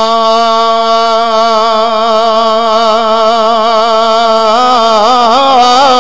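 A man's voice chanting a long held note of a Punjabi devotional verse over a loudspeaker system. It is steady with a slight vibrato at first, then breaks into quick wavering ornaments about four and a half seconds in.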